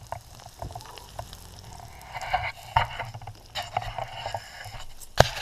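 Meat sizzling on a grill over a campfire, with scattered crackles and pops over a low rumble. A sharp pop about five seconds in is the loudest sound.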